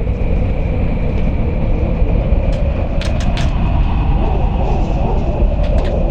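Strong wind blowing in a loud, continuous low rumble, with a steady high whistle above it. A few sharp clicks come about three seconds in and again near the end.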